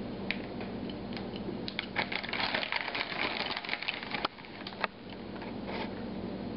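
Crackling and crinkling from a hand grabbing and sprinkling shredded cheese, thickest about two to four seconds in, followed by a few sharp clicks.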